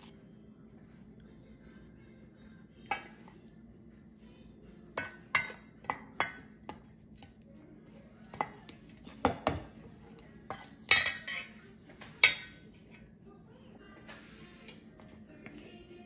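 Metal spoon stirring dry ground chutney powder in a stainless steel pan, with irregular clinks and scrapes of spoon on steel, busiest and loudest in the second half.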